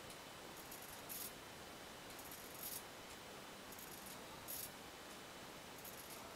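Egg-painting robot at work: its stepper motors turn the egg and move the pen, giving a faint steady hum with a short, scratchy hiss about every two seconds.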